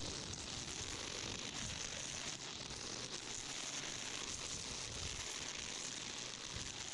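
Battery-powered string trimmer running steadily, its line cutting through vines and brush as an even high hiss. It cuts off suddenly near the end.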